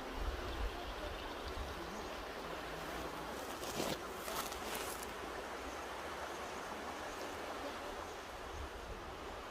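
Mountain river flowing, a steady rush of water, with a low rumble of wind on the microphone. A brief brighter swell of hiss comes about four seconds in.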